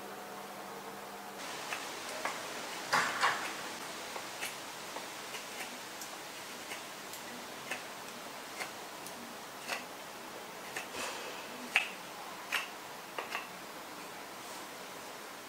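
Knife carving a willow spoon blank: irregular short, crisp snicks as the blade bites into the wood and slices off shavings, roughly one a second, a few of them louder. A faint steady hum sits under the first second and a half.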